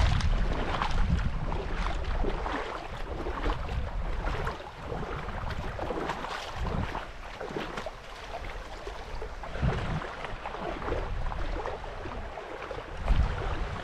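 Spring snowmelt runoff water rushing and splashing in a steady rush. Low gusts of wind buffet the microphone, most strongly about ten seconds in and again near the end.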